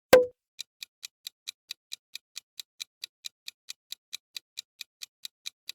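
Countdown timer sound effect: one sharp knock, then steady clock-like ticking at about four and a half ticks a second.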